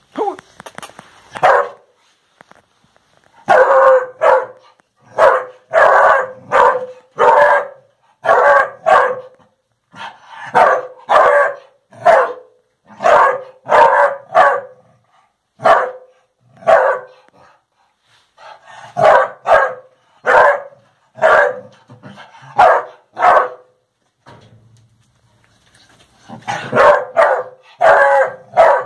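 A hunting dog barking over and over in quick runs of short barks, pausing briefly now and then, as it bays at an armadillo held in a wire cage trap.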